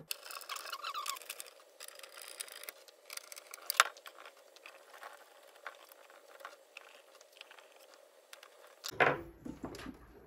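Screwdriver scratching and clicking as it turns a screw in a sheet-metal display housing, with one sharp click about four seconds in. After that the housing is handled and shuffled as it is lifted and turned over, knocking a couple of times near the end.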